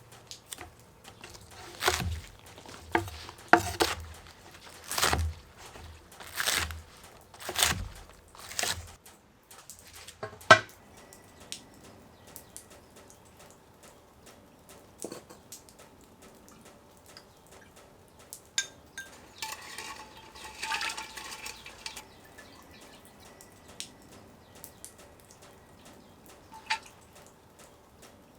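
A run of about eight heavy knocks with a low thud, one every second or so, then scattered clicks and clinks and a short rustling noise about two-thirds of the way through.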